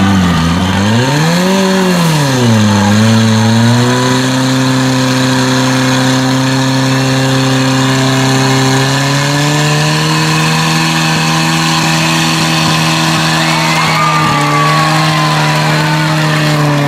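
Portable fire pump's engine revved up and down twice, then held at a steady high speed, its pitch stepping up slightly about nine seconds in.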